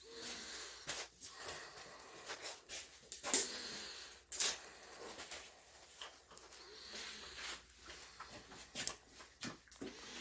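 Black-and-tan Shiba Inu breathing and sniffing in short breathy bursts, with scattered light scuffs and clicks.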